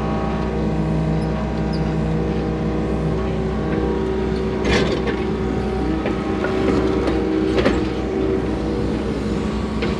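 Hydraulic excavator's diesel engine running steadily under hydraulic load as the boom and bucket work, heard from inside the cab. Two short knocks come through, one about halfway and one later on.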